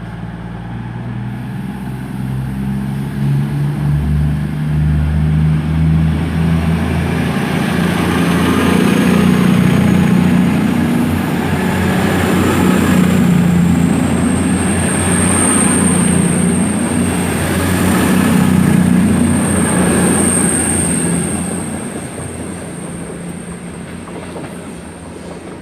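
Class 221 Super Voyager diesel-electric unit pulling away: its underfloor diesel engines rev up over the first few seconds. The sound builds to a long peak of engine and wheel noise with a high whine, then fades as the train leaves.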